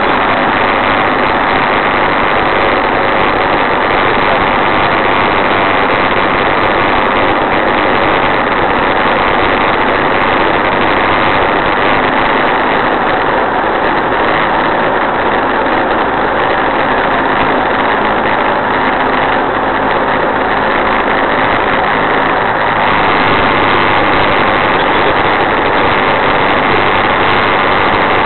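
Engine and propeller of a single-engine light aircraft running steadily in flight, heard inside the cockpit. It gets slightly louder about 23 seconds in.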